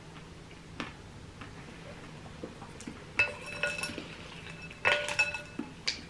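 A spoon clinking against a bowl while scooping berries and ice. A few faint knocks come first, then clusters of ringing clinks from about halfway through.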